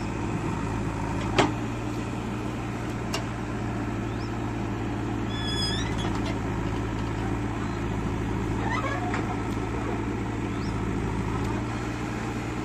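Diesel engine of a JCB 3DX backhoe loader running steadily while it digs soil with its backhoe. There is one sharp knock about a second and a half in.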